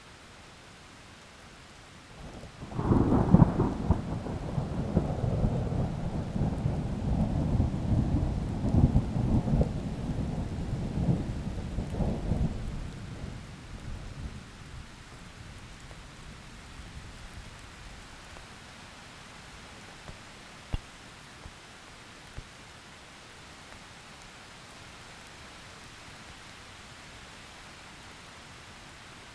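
Steady rain with a clap of thunder about three seconds in that rolls and rumbles for around ten seconds before fading back into the rain. A couple of faint sharp ticks follow later on.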